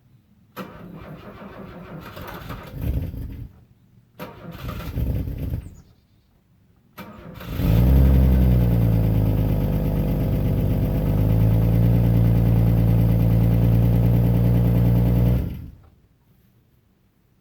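A fuel-injected car engine being cold-started. The starter cranks twice without the engine catching. On the third try it fires, runs up briefly, then settles into a steady idle before cutting off abruptly.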